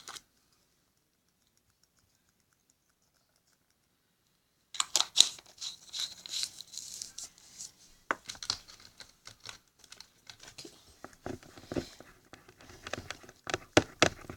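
About five seconds of silence, then rustling, crinkling and clicking of plastic glitter containers being handled and shaken out.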